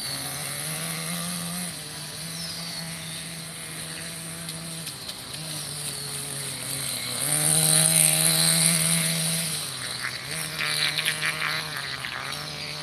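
Radio-controlled model boat's motor running in a steady hum that cuts out briefly and picks up again several times as the throttle is worked, loudest for a couple of seconds past the middle.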